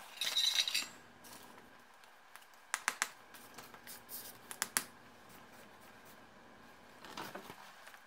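A soldering iron's tip scraped and tapped against a small metal tin on the bench: a short hissy scrape at the start, then several sharp metallic clicks, and a softer scrape near the end.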